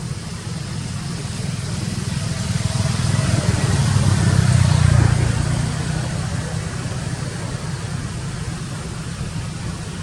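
An engine running with a steady low hum, swelling louder about halfway through and easing off again.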